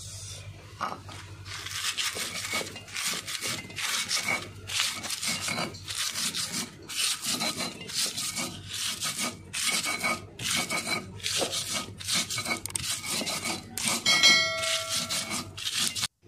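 Stone pestle grinding bird's-eye chilies with sugar and salt on a flat stone mortar (cobek), repeated scraping strokes about two to three a second. A short ringing chime sounds near the end.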